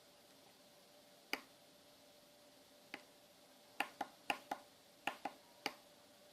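Sharp small clicks from handling the DSO138 oscilloscope kit: one about a second in, another a second and a half later, then a quick run of seven, several in close pairs, in the second half. A faint steady tone runs underneath.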